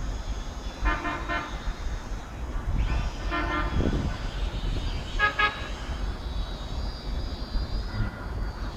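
Vehicle horns tooting: three short bursts of quick beeps, about two seconds apart, over a steady low wind rumble on the microphone.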